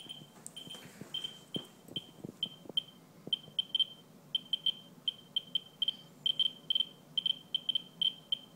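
Ludlum Geiger counter with a pancake probe clicking out counts as short high chirps at random intervals, several a second, at about 440 counts per minute from a rainwater-soaked paper towel, many times the 20–50 per minute background. A few faint knocks in the first few seconds.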